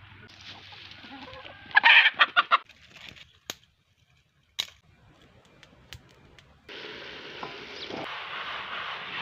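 A chicken clucking in a quick run of loud calls about two seconds in, then two sharp snaps. From about two-thirds of the way through comes a steady hiss from a steaming pot cooking over a wood fire.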